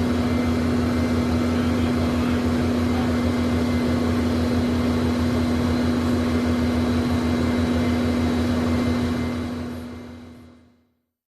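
Learjet engines idling, heard from inside the cabin: a steady hum with one strong tone and a low drone over a rushing hiss. It fades out about two seconds before the end.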